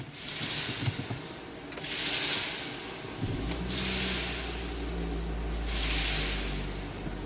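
Four-cylinder Hyundai engine, its cylinder 3 spark plug and plug cable freshly replaced after a misfire, coming in about three seconds in and running steadily at idle. A soft hiss swells and fades about every two seconds.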